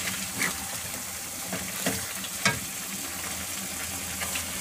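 Chicken pieces cooking in a thick dark gravy in a pan, a steady sizzling hiss, while a wooden spatula stirs them, knocking or scraping against the pan a few times.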